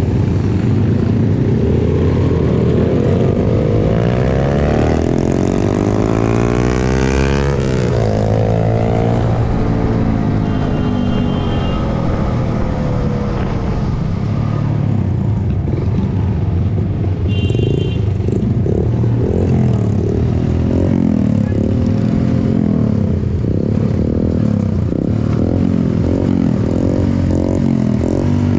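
Trail motorcycle engine being ridden. Its pitch climbs steeply under throttle about five seconds in, then falls away. Later it rises and falls again and again with the throttle.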